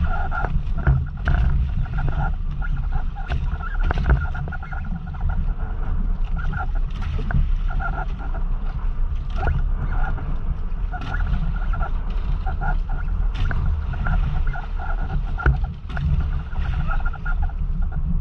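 Motorized outrigger boat running at sea: a steady low engine rumble with a wavering higher whine over it, and water rushing along the hull. A few sharp knocks come from gear against the boat.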